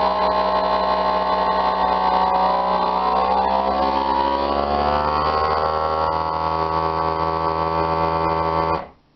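FoodSaver vacuum sealer's pump running steadily as it draws the air out of a bag of meatloaf slices. Its hum rises in pitch partway through as the vacuum builds and the bag pulls tight. It cuts off suddenly near the end.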